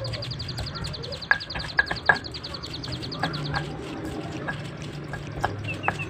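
A stone pestle grinding and pressing grated coconut sambal around a stone mortar, a low rough rubbing broken by scattered sharp clicks of stone on stone. A rapid high ticking call runs in the background and stops about halfway through.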